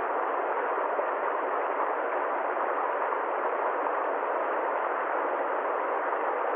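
Steady, even noise with no rhythm or change, limited to a middle band of pitch with no deep rumble and no high hiss.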